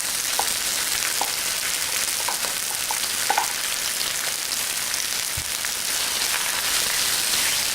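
Beef sizzling steadily in hot oil with onion in an electric wok, with occasional light clicks of stirring.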